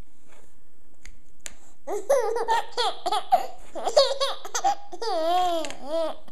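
A young child laughing: a few faint clicks, then about two seconds in, high-pitched giggles in quick bursts, ending in a long drawn-out laugh that rises and falls in pitch.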